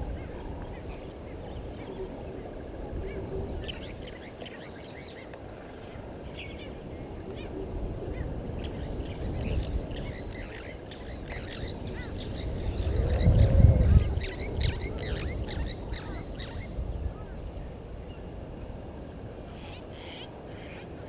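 Wild birds calling at a waterhole: many short, high chirping calls, thickest in the middle stretch. Beneath them is a low outdoor rumble that swells briefly about thirteen seconds in, the loudest moment.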